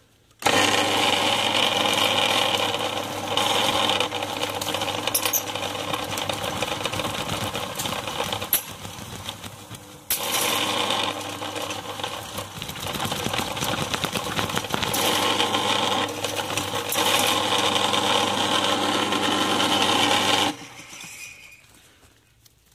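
Ridgid K-1500 sectional drain-cleaning machine running, its motor spinning a spiral cable with a cutting head down a sewer pipe: a steady motor hum with mechanical clatter. It starts about half a second in, drops away briefly a few times, and stops shortly before the end.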